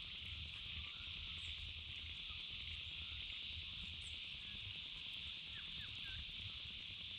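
Outdoor rural ambience: a steady high-pitched hiss with a flickering low rumble of wind on the microphone, and a few faint bird chirps here and there.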